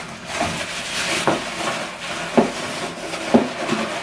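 Packaging in a cardboard box rustling and crinkling as a hand digs through it, with a few sharp crackles about a second apart.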